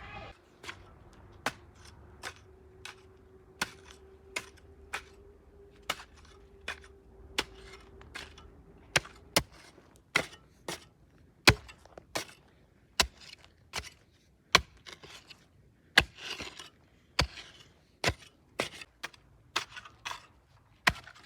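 Scissors snipping through plastic garden fence netting, a sharp snip roughly every three-quarters of a second, coming a little faster near the end. A faint steady hum runs under the first nine seconds or so.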